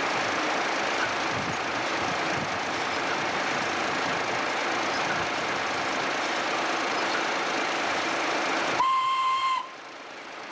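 Belt-driven vintage farm machinery running, its flat drive belts and pulleys turning with a steady noise. Near the end a single high whistle sounds for just under a second, and the running noise drops away right after it.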